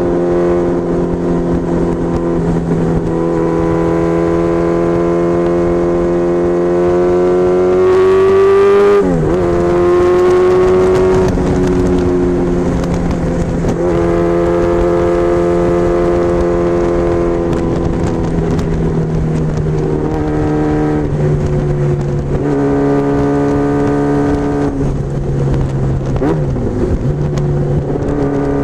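Honda Hurricane 1000 (CBR1000F) motorcycle's inline-four engine running steadily at highway cruising speed. About nine seconds in its note rises slightly and then drops sharply, as at a gear change, and it dips briefly again near the end.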